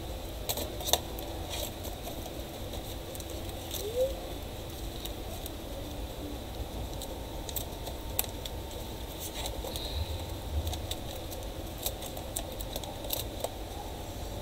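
Scattered light plastic clicks and taps as a Dell Inspiron 15R-5521 laptop keyboard is laid into its palmrest and pressed down into place. The loudest clicks come about a second in and about four seconds in.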